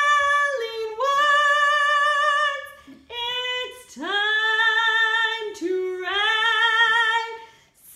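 Outro music: a single high voice singing long held notes with vibrato, in about five phrases, with no instruments behind it.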